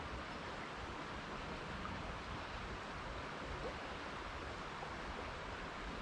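Shallow creek water running steadily, a constant even rush.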